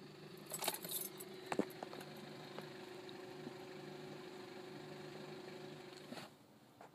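Clicks and a light rattle of handling in a car cabin, mostly between about half a second and one and a half seconds in, over a steady low hum that cuts out with a clack about six seconds in.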